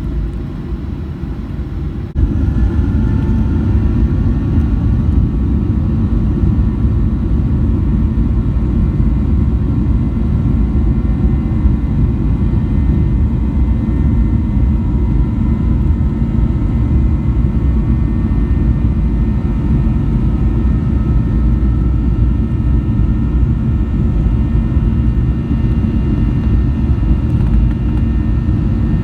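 Boeing 737-900 cabin noise: a steady, loud low rumble of engines and airflow, with a faint whine drifting slightly in pitch above it. It grows louder about two seconds in and then holds steady.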